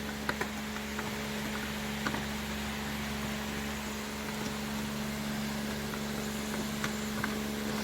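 A steady electrical or machine hum with a constant tone, and a few faint clicks of parts being handled.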